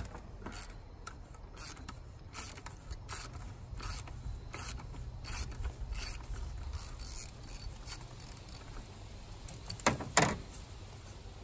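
Socket ratchet clicking in short, uneven runs as a 15/16 socket works loose the oil filter housing cap on top of a 3.6L V6 engine, with two louder knocks near the end.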